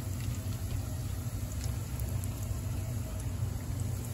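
Coated fish pieces deep-frying in hot oil, with faint scattered crackles over a steady low rumble.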